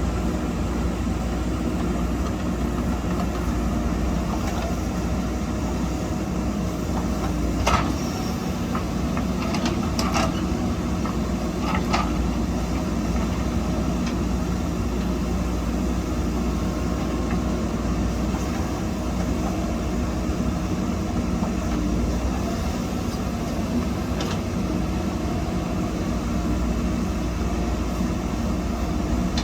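Backhoe loader's diesel engine running steadily while digging and loading soil, with three sharp knocks about two seconds apart roughly a third of the way in.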